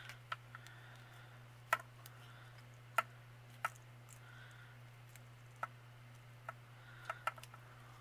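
Scattered light clicks and taps, about eight spread unevenly, from hands coiling fine craft wire around a metal pokey tool, over a steady low hum.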